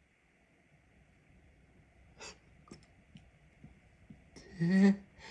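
A man breathing, with a short sniff about two seconds in, then near the end a brief voiced gasp as a sneeze builds.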